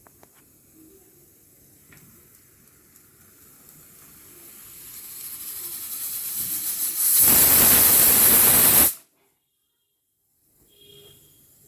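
Hawkins pressure cooker whistling as steam escapes past its vent weight. A hiss grows steadily louder over a few seconds, then becomes a loud, steady blast of steam for about two seconds that cuts off abruptly. The release is the sign that the cooker has reached full working pressure.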